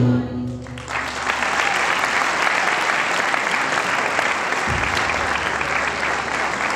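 The last held note of a choir and instrumental ensemble dies away, and about a second in the concert audience breaks into applause, which holds steady.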